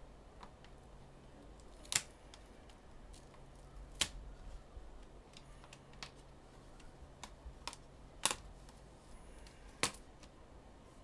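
Plastic screen bezel of an HP laptop being pried off by hand: a few loud, sharp snaps as its clips let go, with fainter clicks and taps between.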